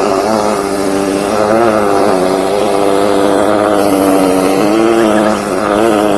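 Engine of a high-pressure drain-jetting machine running steadily under load, its pitch wavering a little, while it drives water through the jetter hose.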